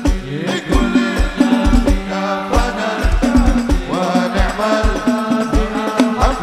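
Live sholawat music from a hadroh-style ensemble: a melody with gliding ornaments over frame drums, and a deep bass drum beating about twice a second.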